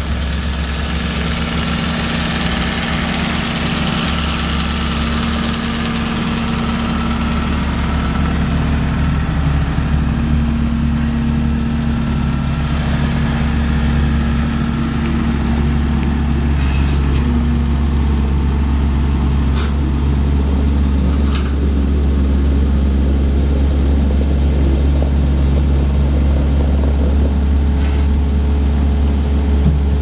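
Case SV250 skid steer loader's diesel engine running steadily at idle, with a few short clicks in the second half.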